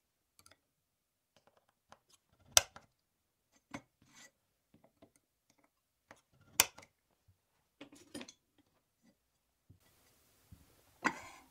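Aluminium extrusion pieces and small jig parts handled and set down on a worktable: scattered light taps and clicks, with two sharp knocks about two and a half and six and a half seconds in, and a short clatter near the end.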